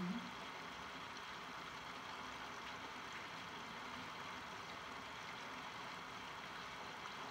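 Rain falling steadily: an even hiss without separate drops or other events.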